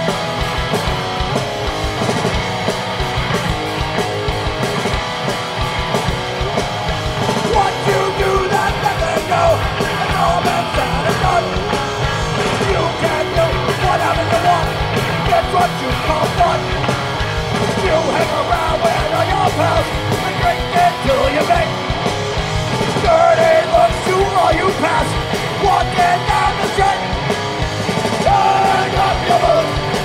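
Hardcore punk band playing live at full volume, with shouted vocals coming in about seven seconds in and running on over the band.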